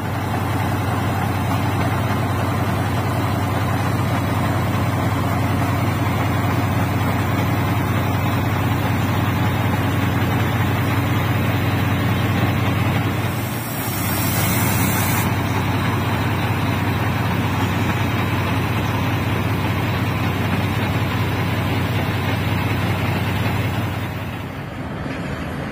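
Heavy diesel engine running steadily with a deep, even hum. A hiss of about two seconds cuts in a little past halfway, and the engine sound drops slightly near the end.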